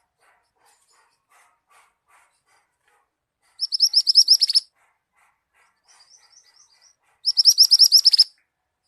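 Songbird singing: two loud, rapid, high trills of about a second each, a few seconds apart, with a softer short run of notes between them and faint chips underneath.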